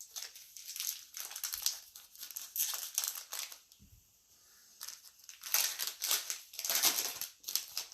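Crinkling of a trading card pack's wrapper as it is handled and opened, in a string of crackly bursts that get louder in the second half.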